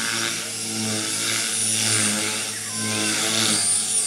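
Rave400 RC 3D helicopter flying aerobatics: a steady rotor whir and hum that holds one pitch and swells and dips as it manoeuvres.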